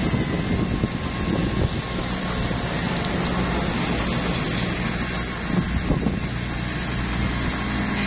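Diesel engine of a Komatsu D21P small crawler bulldozer running steadily with a low, even drone.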